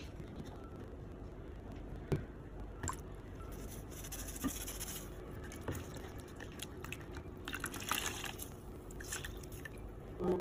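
A plush makeup remover pad being rubbed and swished by hand in a bowl of water: wet squishing and splashing, with small knocks and drips scattered through and the busiest splashing about four and eight seconds in.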